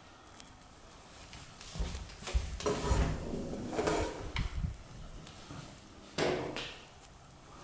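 Footsteps and knocking thumps on a wooden floor, bunched together in the middle, with one sharper knock about six seconds in.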